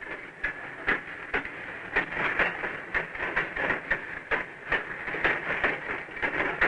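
Heavy freight gondola car rolling through a yard switch, its steel wheels clicking over rail joints about twice a second over a steady rolling hiss.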